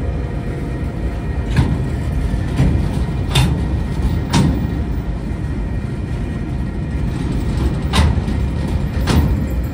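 Container wagons of a freight train rolling past: a steady low rumble, broken by a sharp clack from the wheels on the track every second or so, with a gap in the middle.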